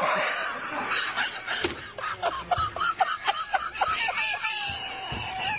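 News anchors laughing helplessly: quick runs of short giggling bursts, about four or five a second in the middle, ending in a longer drawn-out laughing note.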